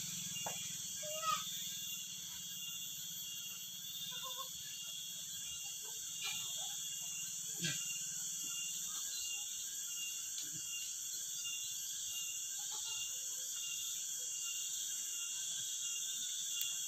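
Steady, high-pitched chorus of insects trilling, with a few faint short calls and a couple of small clicks scattered through it.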